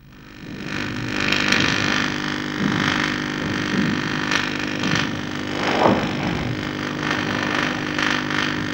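High-voltage electric arc burning between two wires, giving a steady buzz and hiss with sharper crackles now and then.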